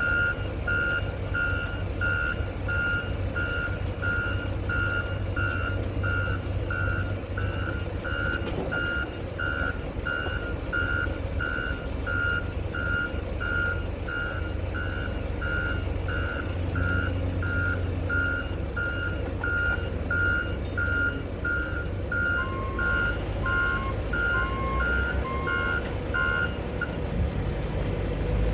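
Backup alarm of heavy equipment beeping steadily, about one and a half beeps a second, over a diesel engine running low. Near the end a second alarm at a different pitch joins in, then both stop shortly before the end.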